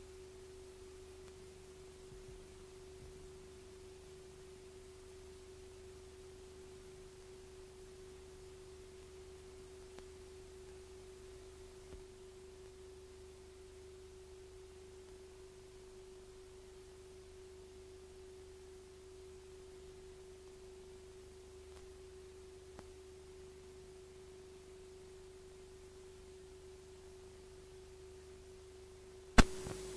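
A faint, steady single-pitched electronic tone over a low hum. A sharp click comes near the end, after which the tone continues louder.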